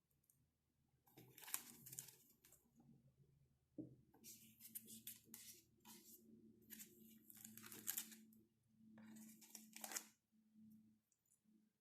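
Packaging of a keycap set being handled: crinkling and tearing in four separate bursts.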